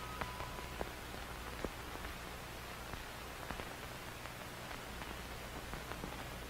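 Steady hiss with a low hum and scattered faint clicks and crackles, like the surface noise of an old film or tape. A couple of faint held tones stop within the first second.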